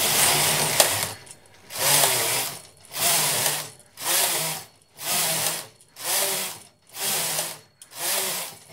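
Brother 950i knitting machine carriage slid back and forth across the needle bed, knitting one row per pass: eight rattling passes about a second apart, the first slightly longer.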